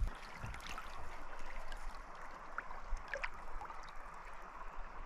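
River water gurgling and trickling around a canoe as it moves down the river, with a few faint small ticks of water.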